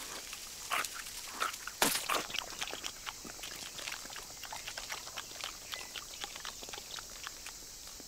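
Cartoon sound effects of a chameleon chewing a butterfly: irregular clicks and crunches, the loudest about two seconds in, thinning out towards the end, over a faint steady high hiss.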